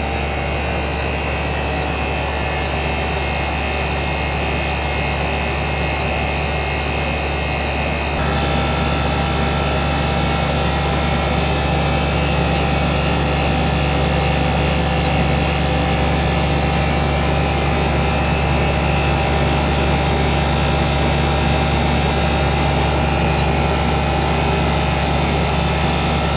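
CTI-Cryogenics 9600 helium compressor running: a steady mechanical hum with several held tones. It grows a little louder about eight seconds in. A faint tick repeats about once a second.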